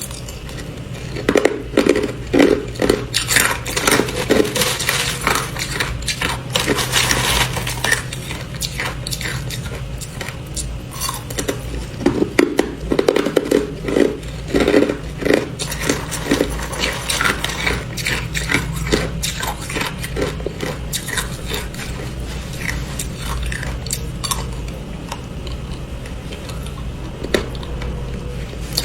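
Hard clear ice being bitten and crunched, in two long runs of dense cracking crunches with sparser chewing crunches between and after, over a low steady hum.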